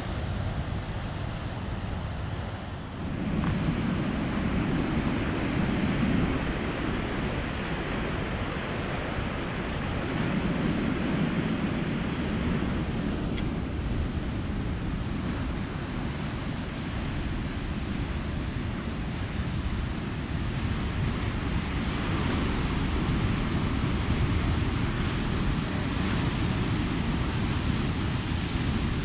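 Ocean surf breaking and washing ashore, swelling and easing in slow surges, with wind on the microphone. The first few seconds hold a different, hissier steady noise that cuts away about three seconds in.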